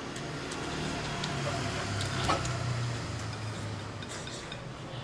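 Wooden chopsticks clicking and scraping against a bowl while rice is shovelled in and eaten, with one sharper click about two seconds in. A low hum runs underneath and swells in the middle.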